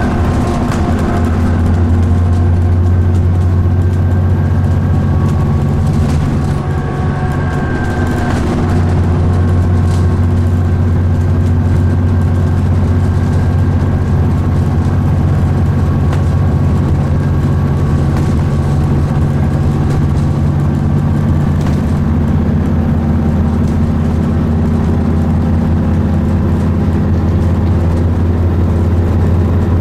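Alexander Dennis Enviro400 Trident double-decker bus under way, heard from inside the passenger saloon: a steady low engine drone with road noise and a few faint whining tones above it. The drone eases briefly about seven seconds in, then picks up again.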